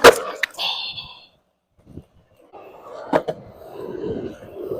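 A skateboard's tail snapping hard on concrete, with a second, smaller clack about half a second later, then the wheels rolling over the concrete.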